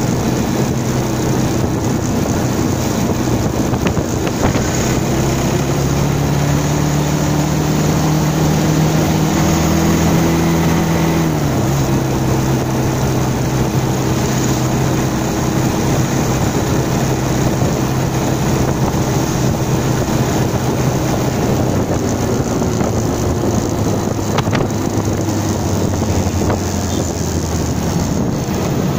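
Bajaj Pulsar 220's single-cylinder engine pulling under acceleration, its note rising for several seconds, then dropping abruptly about halfway through and running steadily after that. Wind buffets the microphone throughout.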